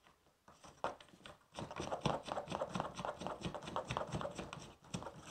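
Plastic oarlock cap being screwed down by hand over an aluminium oar: a few light clicks, then about three seconds of quick rubbing and ticking, ending with a click.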